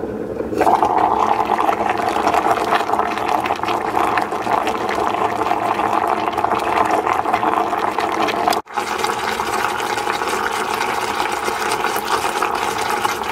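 Pork and adobo sauce of vinegar and soy sauce boiling in a stainless steel electric pot: a steady, dense bubbling. It breaks off for an instant about two-thirds of the way through and then goes on.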